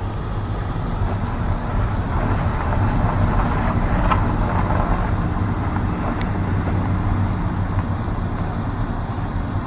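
An engine running steadily at one constant speed: a low, even hum that does not rise or fall.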